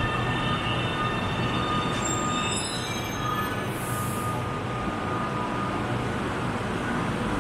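Shanghai Metro train running into the platform and braking: a steady rumble of wheels on rail with thin, high squealing tones, and a run of short high whines about two to three seconds in as it slows.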